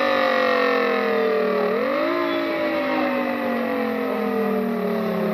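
Outdoor warning (tornado) siren sounding several tones at once, winding down with its pitch slowly falling, rising briefly about two seconds in, then falling again.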